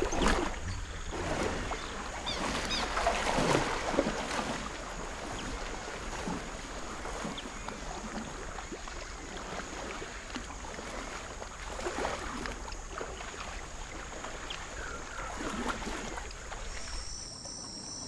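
Water sloshing and splashing as a mating pair of crocodiles moves in shallow water, with a few louder splashes in the first few seconds and again near the middle.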